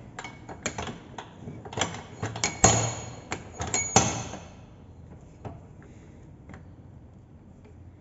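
Metal parts of a car starter motor clinking and knocking as it is taken apart by hand: a quick run of knocks and clicks for about four seconds, the loudest near the end of that run, then only a couple of faint clicks.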